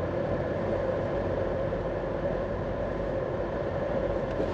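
Steady vehicle rumble heard from inside a car's cabin, even and unbroken.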